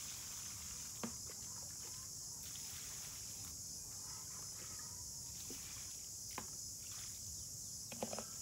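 A plastic scoop dipping into a plastic bucket of water, with a few light knocks and splashes about a second in, past the middle and near the end, over a steady high hiss of outdoor ambience.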